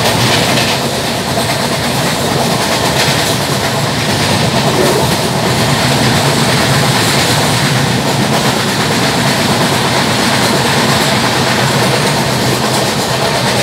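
LHB passenger coach running fast over the rails, a steady loud rush of wheel and track noise with clickety-clack, heard from an open coach door. A flat spot on a wheel adds a repeated knock on each turn of the wheel.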